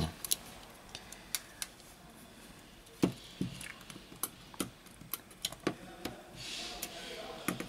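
Scattered sharp clicks and light knocks, about a dozen of them, as a metal tool is worked along the edge of a smartphone's plastic back frame to free it. A soft hiss comes near the end.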